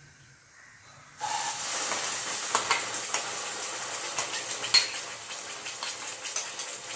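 Ground coconut masala paste dropped into hot oil in a nonstick kadai, sizzling from about a second in. Through the sizzle come the clicks and scrapes of a spoon pushing the paste off a glass bowl and against the pan.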